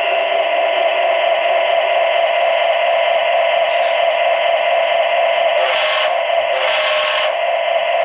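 Steady diesel engine idle sound played through an O gauge model locomotive's small onboard speaker. A short hiss comes about four seconds in, and two longer hisses follow near the end.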